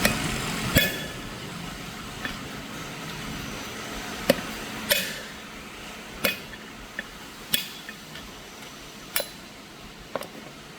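Metal being struck: about nine sharp, irregularly spaced hammer-like knocks and clinks, some with a short metallic ring, over a steady background noise that fades away in the first few seconds.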